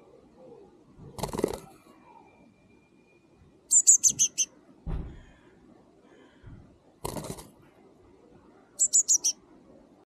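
Blue tit calling in two quick runs of five or six high, thin chirps, about four seconds in and again near the end, with short rustling scuffles in between.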